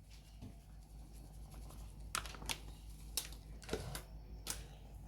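Light kitchen handling noise while the dish is garnished with chaat masala: about five short, soft clicks and taps spread through the middle and latter part.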